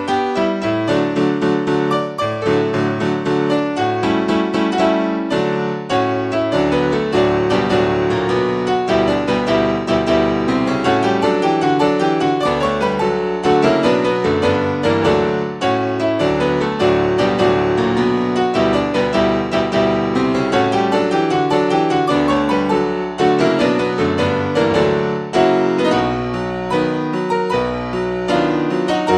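Piano music playing continuously, a dense run of quick notes.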